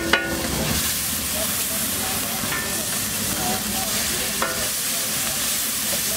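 Spiced masala sizzling on a large flat griddle as a metal spatula stirs and scrapes it across the hot surface. A sharp ringing clink of the spatula on the griddle comes right at the start and again about four seconds in.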